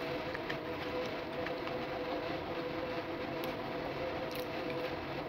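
Steady mechanical hum with two steady whining tones, with a few faint clicks of someone eating French fries.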